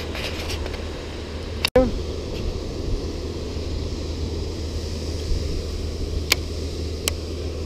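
Steady low rumble of wind on the microphone over open water, broken by a brief dropout a little under two seconds in. Two sharp clicks come near the end while a baitcasting reel is being handled.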